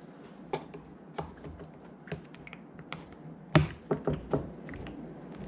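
Scattered light clicks and taps as a metal hose clamp and 3D-printed TPU adapter are handled and fitted around an electric motor, with a sharper knock about three and a half seconds in.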